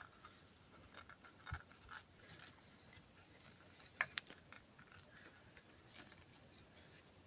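Faint clicks and light metallic taps of small carburetor parts being handled and set down, with a brief scrape about three seconds in and a sharper tick about four seconds in.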